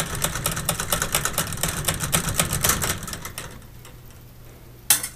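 Rapid clicking and rattling from wires and plastic push-in wire connectors being handled close to the microphone, dying down after about three seconds, then one sharp click near the end. A steady low hum runs underneath.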